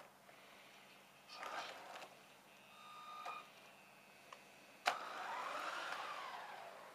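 Electric RC drift car's motor giving a couple of short whines, then the car accelerating away with a motor whine that rises and falls in pitch for about two seconds near the end.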